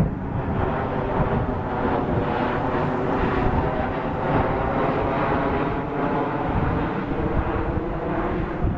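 An engine drones steadily throughout, over a rough low rumble.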